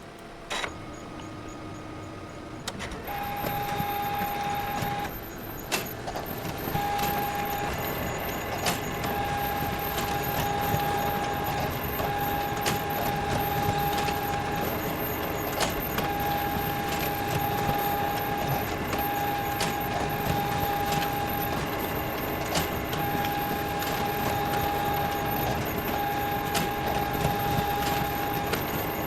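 Photocopier starting up and running. A click comes about half a second in and the machine spins up about three seconds in. It then runs with a steady mechanical hum, a high whine that stops and starts again every second or two, and scattered clicks.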